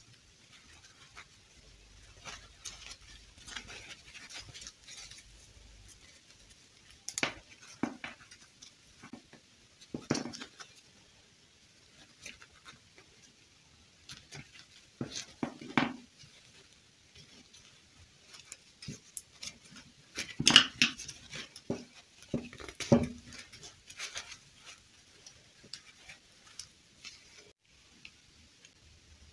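Handling noise from a plastic fashion doll and small plastic dress pieces: scattered clicks, taps and rustles as the pieces are fitted on and turned in the hands, with louder knocks now and then, strongest about two-thirds of the way through.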